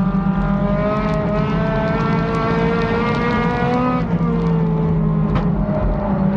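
Race car engine heard from inside the cockpit, its pitch climbing steadily for about four seconds, then dropping suddenly and running on at a lower, steadier pitch.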